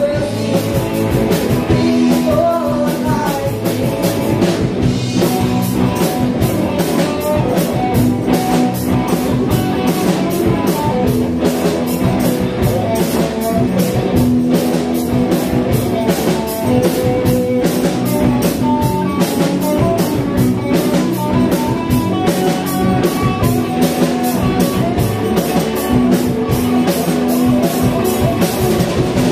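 A live rock band playing loud, amplified: electric guitars and a drum kit keeping a steady beat, with sung vocals.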